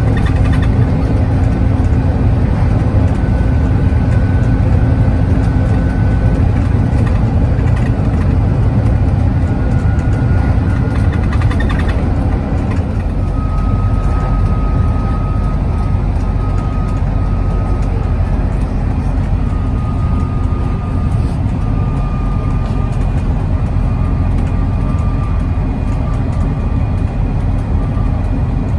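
Interior sound of a Volvo B5TL double-decker bus under way: the steady rumble of its four-cylinder diesel engine and road noise. A faint whine rides over it and drops to a lower pitch about halfway through.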